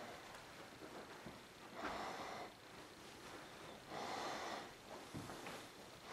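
Soft breathing close to the microphone, one breath about every two seconds.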